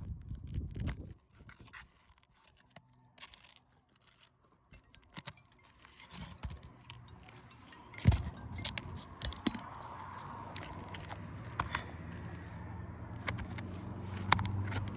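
Scattered clicks, taps and scraping of hand tools working a nail out of a brittle asphalt shingle, with one sharp knock about eight seconds in. A low, steady motor hum comes in during the second half and slowly grows louder.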